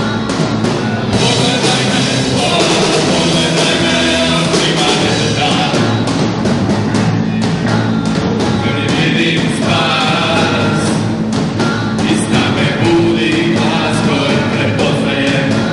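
Live rock band playing, with drum kit and electric guitars, while voices sing over it.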